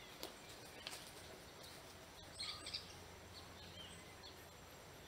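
Faint outdoor ambience with a few brief, high bird chirps, most of them about two and a half seconds in.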